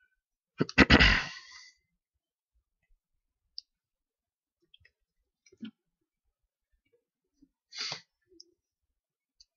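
A few small isolated clicks close to the microphone in a quiet room, with a louder short rush of noise about a second in and another near the end.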